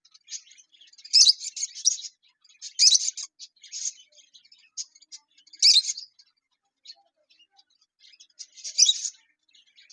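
Lovebirds chirping and chattering in short, shrill bursts, with louder calls every two to three seconds.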